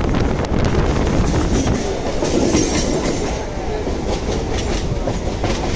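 Electric suburban local train running along the track, heard from its open doorway: a steady loud rumble with repeated clickety-clack of the wheels over rail joints.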